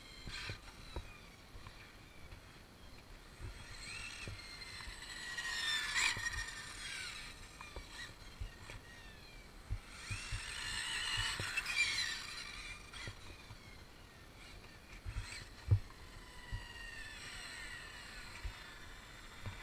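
Brushless 1200KV motor of an Arrma Limitless 1/7 RC car whining in several high-speed passes, the pitch rising as it speeds up and falling as it slows, on a 6S battery. A sharp thump about three-quarters of the way in is the loudest sound.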